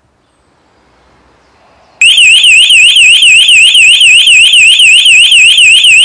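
Burglar alarm bell box siren going off suddenly about two seconds in: a very loud electronic warbling tone that sweeps up and down about four times a second.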